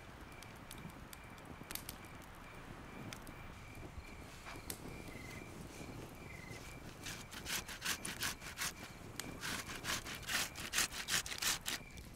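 Fresh tomatoes being grated by hand on a flat metal grater into a wooden bowl: wet rasping strokes, sparse at first, then from about halfway a quick run of louder back-and-forth strokes, two to three a second.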